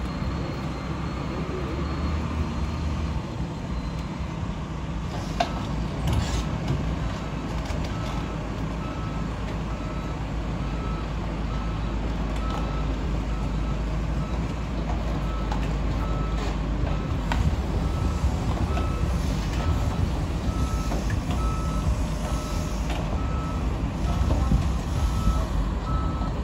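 Woltman 55DR crawler drilling rig's diesel engine running with a steady low rumble as the rig tracks slowly, with a couple of knocks about five and six seconds in. From about eight seconds in its motion alarm beeps at a steady, even pace.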